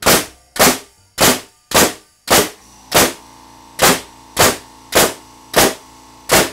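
Pneumatic framing nailer firing 3-inch nails into wood in rapid succession, about a dozen sharp shots roughly two a second. About two seconds in, the Rolair JC10's oil-less two-cylinder compressor kicks on as the tank pressure drops, and its steady hum runs beneath the shots.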